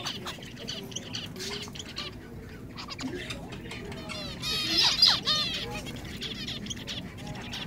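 Zebra finches chirping in a cage, short calls scattered throughout and a dense flurry of rapid calls about halfway through, over a low steady hum of shop background noise.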